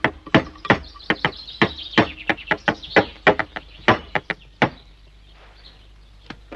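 Cartoon sound effect of a heavy object tumbling and bouncing along the ground: a rapid, uneven string of knocks, about three or four a second, that stops a little before five seconds in.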